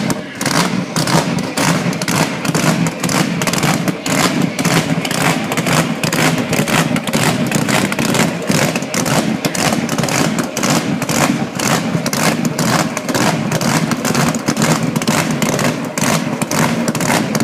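Hot rod engine on open exhaust running hard and being revved, with rapid bangs about four or five a second as unburnt fuel ignites in the exhaust and shoots flames.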